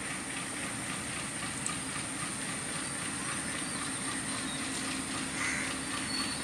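Diesel locomotive engine running with a steady low hum as the train rolls slowly along the track, with faint rail noise.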